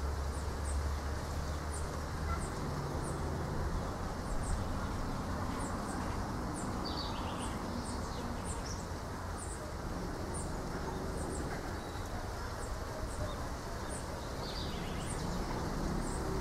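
Outdoor ambience of wind through coconut palms, with a high, short chirp repeating about once a second and a brief bird call midway and again near the end.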